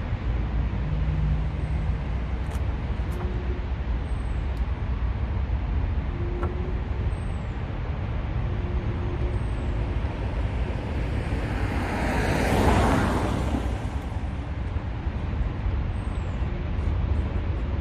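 Steady rumble of highway traffic. One vehicle passes closer and louder about two-thirds of the way through, swelling and fading over a couple of seconds.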